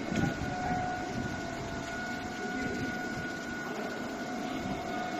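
Machinery of a high-pressure grinding roll (HPGR) grinding plant running: a steady mechanical rumble and hiss with a steady high-pitched whine on top.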